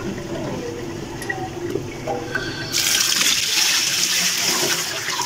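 Kitchen tap water running and splashing onto cut taro pieces in a plastic colander over a steel sink. The flow comes on suddenly about halfway through, after a quieter start.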